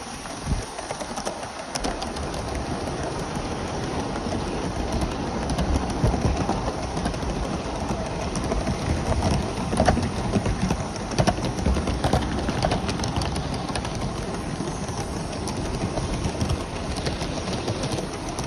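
Gauge 1 Aster BR 9F live-steam model train running, heard from a wagon close behind the tender: a steady rattle of small wheels on the track, with many small clicks.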